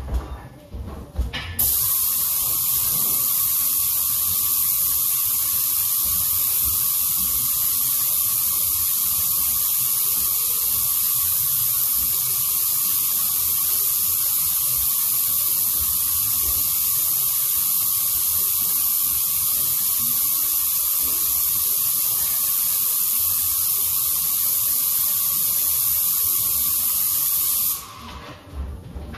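Airless paint sprayer's spray gun spraying paint: a steady, loud hiss that starts about a second and a half in and stops shortly before the end.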